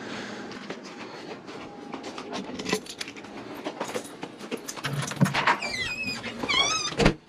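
Footsteps and handling noise from a hand-held camera being carried through a house and out a door, with many small clicks and rustles. Near the end come a few high, wavering squeaks, then a sharp knock.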